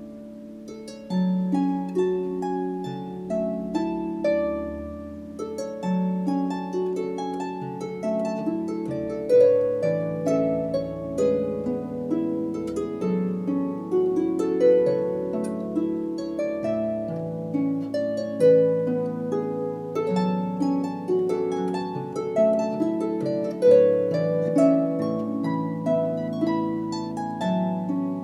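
Instrumental background music: a gentle melody of plucked notes, each ringing and fading, over a held low note.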